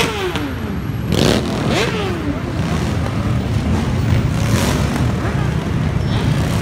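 A convoy of motorcycles riding past one after another with their engines running, mixed with pickup and truck traffic. Twice in the first couple of seconds a passing bike's engine note drops in pitch.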